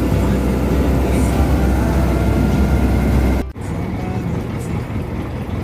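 An engine running steadily with a heavy low rumble and a rushing noise over it. It cuts off abruptly about three and a half seconds in, and a quieter, thinner engine-like sound follows.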